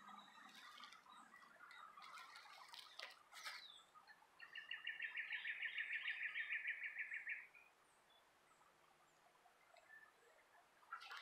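Faint birdsong in the background: scattered short chirps, then a rapid even trill lasting about three seconds in the middle.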